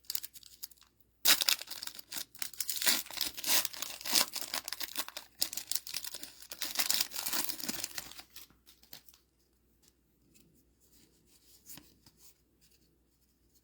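A trading-card booster pack wrapper being torn open and crinkled: a dense run of crackling from about a second in until about eight seconds, then only faint rustles.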